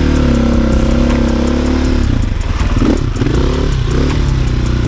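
Enduro motorcycle engine running under load off-road, its pitch rising and falling several times with the throttle, most of all in the second half.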